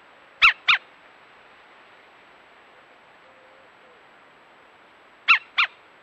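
Young green woodpecker calling: two quick double notes, short and harsh, one pair about half a second in and the other near the end, over faint camera hiss.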